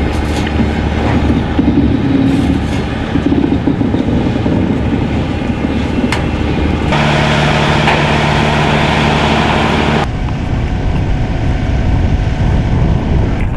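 Diesel locomotive and rail wagons hauling the Soyuz-FG rocket transporter: a steady low engine drone with the rumble of the train on the track. About seven seconds in, a louder hiss and a higher hum join for some three seconds, then stop abruptly.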